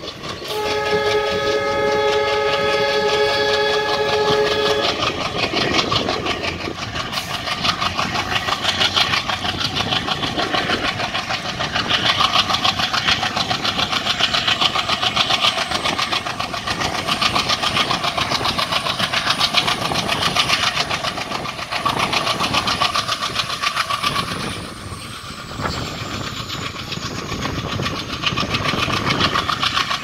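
An Alco diesel locomotive's horn sounds one steady blast of about four seconds near the start, over the noise of the moving train. After it, continuous wheel-on-rail clatter with the locomotive's engine chugging ahead.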